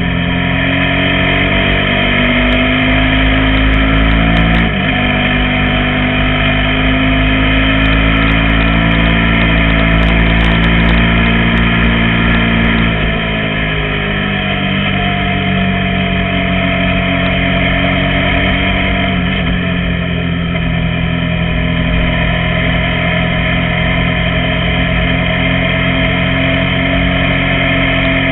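KTM 990 Super Duke's V-twin engine running at road speed, its revs rising and falling gently, with a brief break about five seconds in and the revs easing off about thirteen seconds in. Wind buffets the camera microphone.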